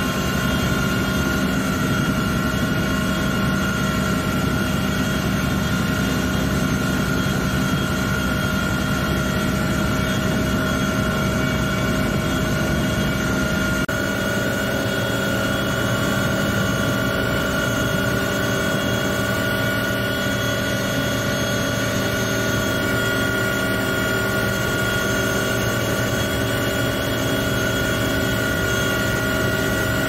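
Firefighting helicopter's engine and rotor running steadily, heard from aboard the helicopter as it flies with a water bucket slung below, with a steady whine over the din.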